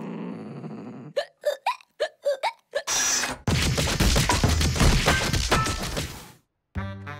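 Cartoon hiccups: about six quick hiccups in a row, each a short yelp rising in pitch. They are followed by a loud crashing noise that lasts about three seconds and cuts off suddenly.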